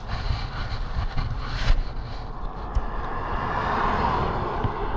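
A passing vehicle, its sound swelling to a peak past the middle and easing off near the end, over a steady low rumble of wind on the microphone.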